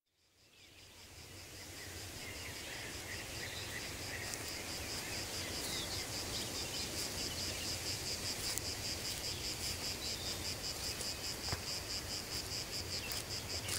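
Insects chirping in a fast, even pulse, fading in from silence over the first couple of seconds, over a faint low rumble.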